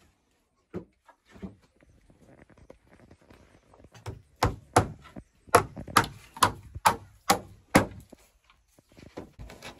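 Hammering on wood: a few light knocks, then a run of about nine sharp blows at roughly two a second, and a few weaker taps near the end.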